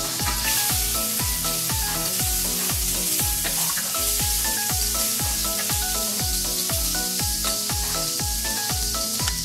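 Butter melting and sizzling in a stainless steel frying pan over low heat, a steady hiss as it is stirred. Background music with a steady beat plays along with it.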